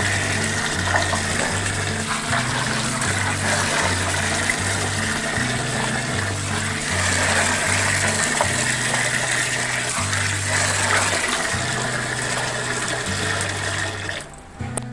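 Tap water running and splashing into an aluminium basin while cut potato pieces are rinsed by hand, with background music underneath. The water sound cuts off about a second before the end.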